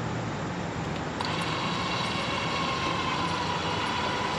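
Electric power-awning motor on a travel trailer running its gears with a steady whine that starts about a second in, rolling the awning out.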